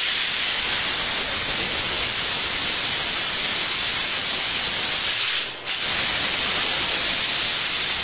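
Steam hissing loudly and steadily from a Royal Star espresso coffee machine as its valve is held open to vent the boiler pressure. The hiss cuts out briefly about five and a half seconds in, then starts again.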